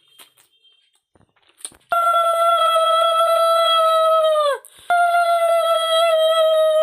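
Faint mouth clicks, then a loud high-pitched held tone that stays very steady for about two and a half seconds and slides down in pitch at its end, followed at once by a second like it.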